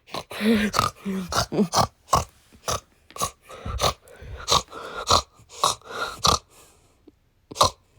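A pig grunting and snorting in a quick run of short, sharp grunts, about two a second, breaking off about six and a half seconds in before two last grunts near the end.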